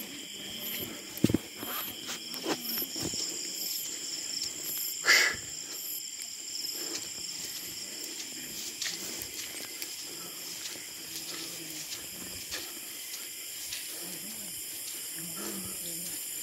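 Night insects calling steadily in several high, even tones, with a faster pulsing trill higher up, under the scuffs and knocks of someone walking with a phone; a sharp knock comes about a second in and a louder one about five seconds in.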